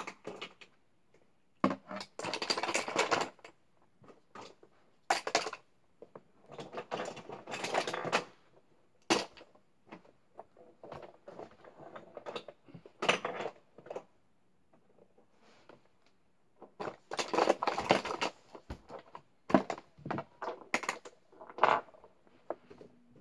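Small makeup items clattering and knocking together as they are rummaged through and packed back into a makeup container. The sound comes in irregular bursts of clatter, with single clicks and knocks in between.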